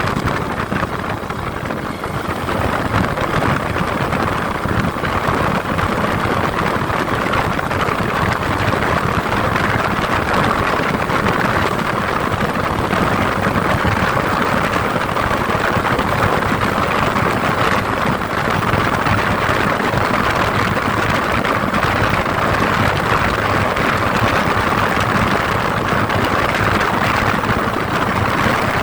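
Steady running noise of a car on the move: engine and road noise, even throughout.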